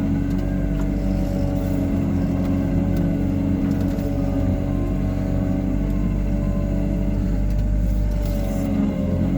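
Hyundai R140W-7 wheeled excavator's diesel engine running steadily, with a wavering whine over the low hum.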